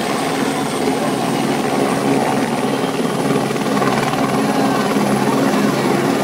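Helicopter engine and main rotor running steadily on the ground at lift-off power, with a thin high whine over the rotor noise, growing slightly louder as the helicopter starts to lift off near the end.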